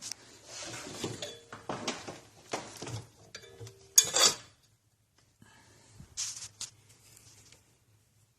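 Metal tools and parts clinking and clattering in irregular bursts, with a few brief metallic rings; the loudest clatter comes about four seconds in.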